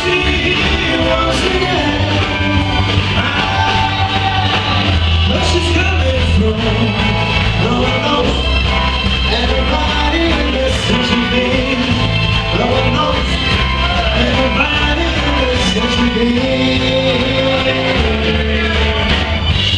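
Live rock band playing a song, with electric guitar, bass and a singing voice over it.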